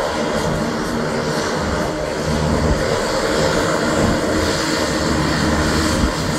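Beechcraft King Air 350 twin turboprop taxiing, its two PT6A turboprop engines running at low power. A steady propeller drone with turbine hiss, holding an even level throughout.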